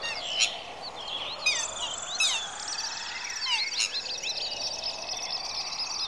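Many small songbirds chirping and twittering in quick, overlapping calls over a steady background hiss.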